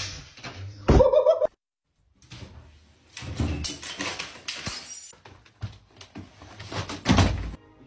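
Knocks and clattering of household objects, with a loud thud about seven seconds in and a short pitched cry about a second in.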